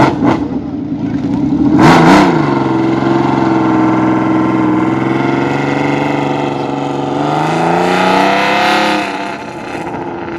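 Classic racing motorcycle engine, revved in sharp blips, then holding a steady note. The pitch rises briefly near the end and then fades away.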